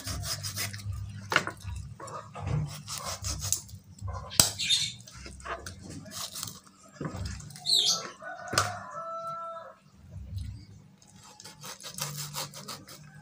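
Large kitchen knife cutting through a raw chicken on a wooden cutting board: repeated scraping cuts and sharp knocks of the blade on the wood. A bird calls briefly about two-thirds of the way in.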